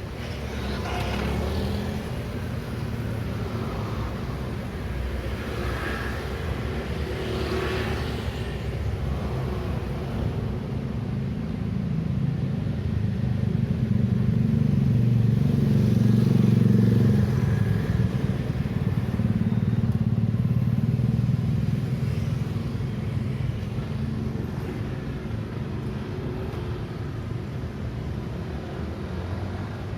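Busy city street traffic: a steady mix of motorcycle and car engines and tyre noise. It swells to its loudest about halfway through as a heavier vehicle passes close, then eases back.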